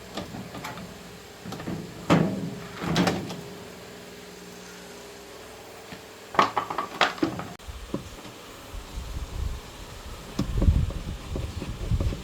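Several knocks and clatters of parts being handled during washing-machine repair, followed by a low, uneven rumbling with smaller knocks in the last few seconds.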